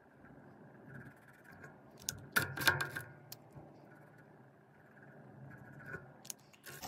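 Marker scratching on a paper savings-tracker card as the symbols are coloured in, with light taps and clicks of the pen and card. The loudest part is a cluster of clicks a little over two seconds in, and there are a few more clicks near the end.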